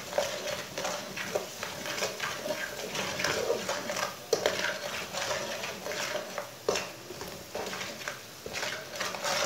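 A slotted metal spatula scrapes and knocks against a metal karahi as spice masala is stirred and fried, over a light sizzle. There are irregular scrapes throughout, with a couple of sharper clacks about four and a half and seven seconds in.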